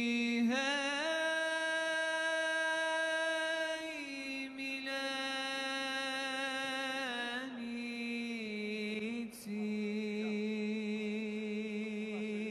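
Background vocal music in nasheed style: a chanting voice holds long, slightly wavering notes, moving to a new pitch a few times.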